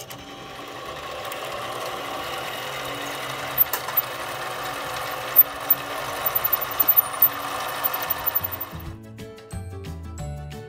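Harbor Freight 7x12 mini metal lathe running steadily while a size 23 drill bit in the tailstock chuck peck-drills a steel rod, with sharp ticks scattered through the middle. The machine sound builds over the first couple of seconds and fades out about nine seconds in, leaving background music.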